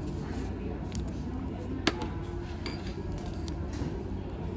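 Cutlery and dishes clinking at a table, with one sharp clink about two seconds in, over a steady low background hum.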